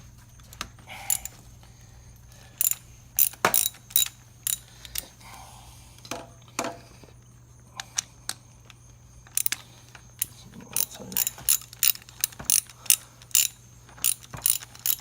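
Ratchet wrench with a spark plug socket clicking in short, irregular runs with pauses between, as a spark plug is worked loose from a Kawasaki Ninja 250R's engine.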